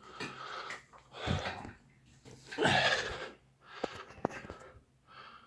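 A person breathing audibly close to the microphone: several separate noisy breaths, the loudest about three seconds in, with two short clicks near the four-second mark.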